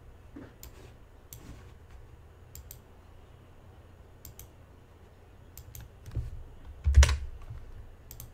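Sparse typing on a computer keyboard: scattered key clicks every second or so, with a louder knock about seven seconds in.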